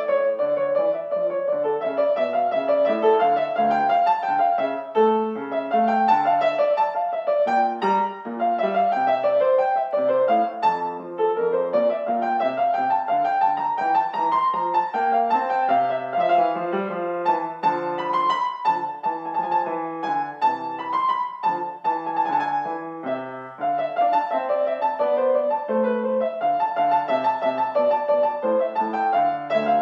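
Kawai grand piano played solo: a continuous, flowing piece with a melody moving over chords.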